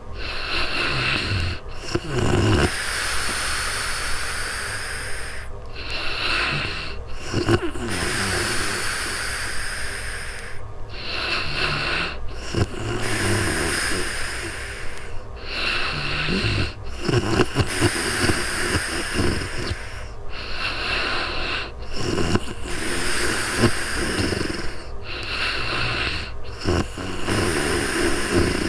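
A woman snoring in her sleep with slow, regular breaths. About every five seconds there is a short rattling snore, followed by a longer airy breath, six times over.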